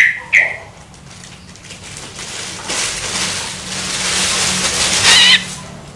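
Young long-tailed shrike (cendet) giving begging calls: two short sharp calls at the start, then a harsh rasping call that builds over a couple of seconds and ends in a loud wavering squeal about five seconds in. These are the food-begging calls of a fledgling asking to be fed.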